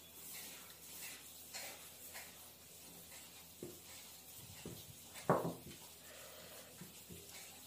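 Close-up eating sounds of a person eating rice and curry by hand: small wet clicks and smacks of chewing and fingers in the food, with one louder slurp about five seconds in.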